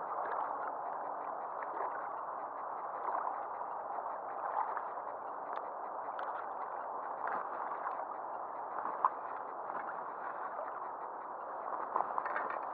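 Small wind-driven ripples lapping and gurgling against the angler's craft close to the microphone, a steady watery wash with scattered tiny splashes and ticks.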